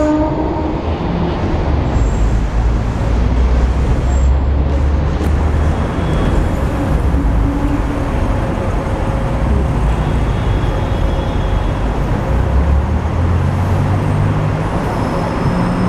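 Hong Kong double-decker electric tram running along its track, heard from on board: a steady low rumble of the wheels and running gear, with street traffic around it.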